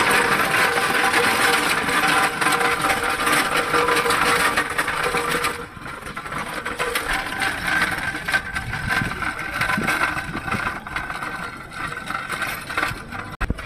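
Small caster wheels of a steel dolly rattling over rough paving while carrying a bare engine block, a fast dense clatter. It drops sharply about six seconds in and goes on quieter over smoother concrete.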